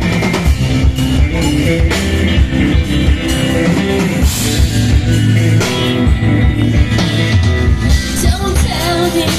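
Rock band playing live: electric guitar, bass and drum kit in a steady beat.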